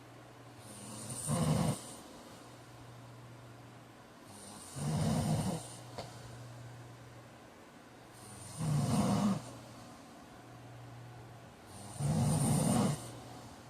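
A man snoring loudly in his sleep: four loud snores, one every three and a half to four seconds, each lasting about a second, with a low steady hum between them.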